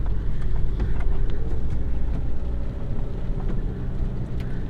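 A vehicle engine running steadily at low speed, heard from inside the cab, with scattered light ticks and knocks over it as it is driven carefully across a wet, slippery paddock.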